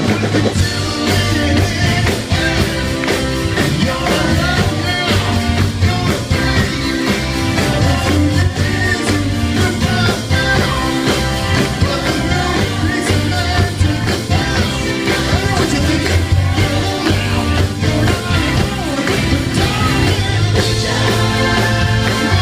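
Live band music with singing, a pop-soul number with a steady bass line.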